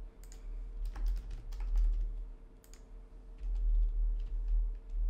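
Typing on a computer keyboard: irregular bursts of keystrokes as text is entered into a form, over a steady low hum.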